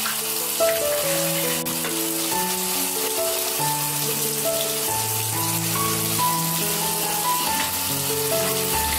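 Background music: a slow melody of held notes over a steady hiss.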